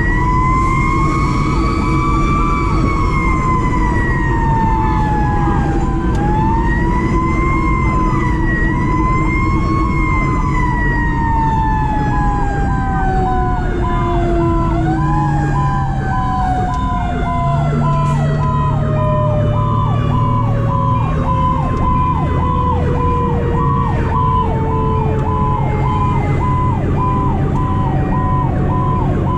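A fire engine's mechanical Q siren winding up and coasting down in long rising and falling wails, ending in a long slow wind-down. From about a quarter of the way in, a fast on-off electronic tone at one steady pitch joins it, over the steady drone of the diesel engine. Past the middle come a short and then a longer low horn note.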